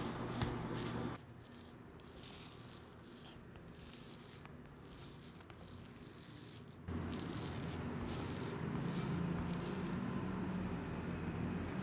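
Silicone spatula stirring and pressing milk-moistened Oreo cookie crumbs against a glass bowl as they clump into a dough: a gritty scraping and rubbing. It drops abruptly to a quieter stretch about a second in and comes back as abruptly about seven seconds in.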